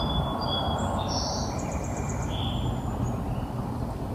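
Outdoor ambience: birds singing, with thin high whistled notes and chirps mostly in the first half, over a steady background noise.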